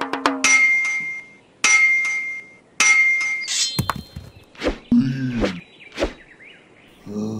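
Three ringing metallic clangs about a second apart, each ringing on. Then, from about four seconds in, a few sharp stone-on-stone knocks as a cartoon caveman chips at a stone, with a short grunt-like voice sound among them.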